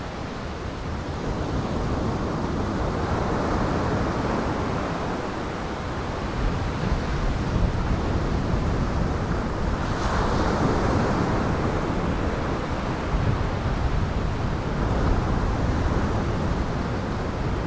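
Gale-driven Lake Michigan waves surging and breaking against the shore, with wind rushing over the microphone. The surf swells several times, and the biggest break comes about ten seconds in.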